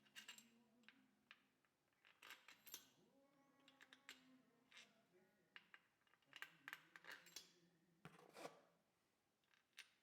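Scattered light metallic clicks and taps of hand tools and small engine parts, faint and irregular, as the cylinder head cover is fitted and bolted down.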